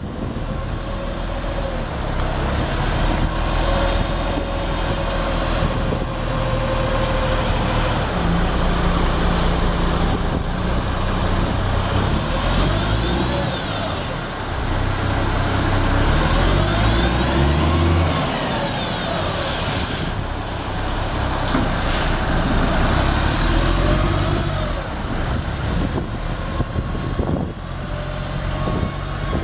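The Cummins diesel engine of a 1988 Advance concrete mixer truck running, its engine speed rising and falling several times through the middle, with a few short hisses of air.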